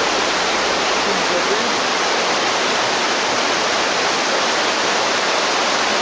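Fast mountain stream rushing over rocks in small cascades: a loud, steady rush of water with no let-up.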